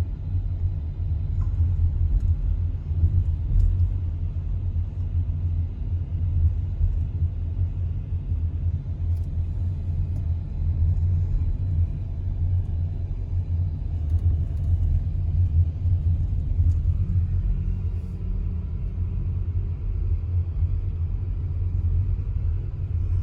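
Steady low rumble of a car moving slowly, heard from inside the cabin: road and engine noise.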